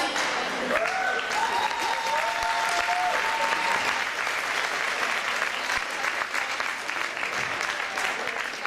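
Crowd applauding and cheering, with a few high, drawn-out cheers in the first few seconds.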